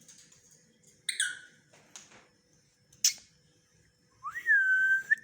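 Pet parrot vocalising: a short squawk about a second in, a sharp click about three seconds in, then a whistle that rises and holds on one steady note near the end.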